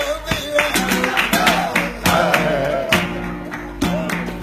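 Flamenco bulerías: a voice sings a winding line that moves up and down over acoustic flamenco guitar, with sharp percussive hits landing throughout.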